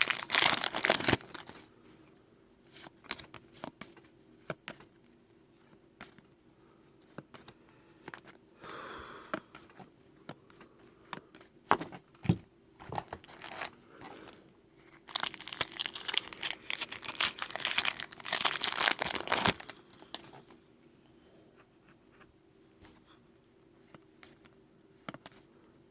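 Trading card pack wrapper crinkling and tearing, in a short burst about a second in and a longer stretch from about fifteen to nineteen seconds, with scattered light clicks and taps in between.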